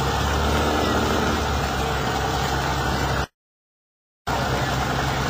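Lifted mud-bogging pickup truck's engine running steadily at low revs. The sound cuts out completely for about a second just past the middle, then returns unchanged.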